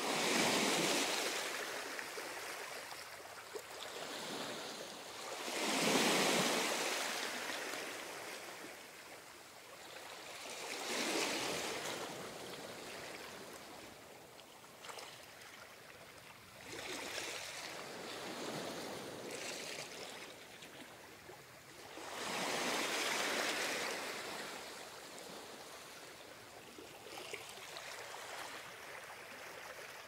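Ocean surf: waves breaking and washing up the shore, swelling and fading in a slow rhythm, one surge every five or six seconds, the loudest about six seconds in.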